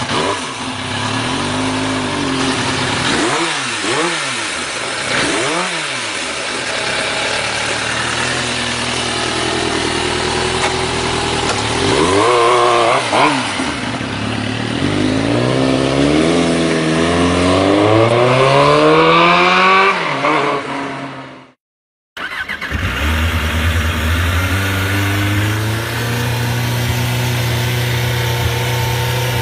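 Suzuki GSX-R sport bike's stock inline-four engine revved in several quick blips, then accelerating with a long rise in pitch. After a sudden cut about 22 seconds in, a second GSX-R engine runs at a steady fast idle with a small rev.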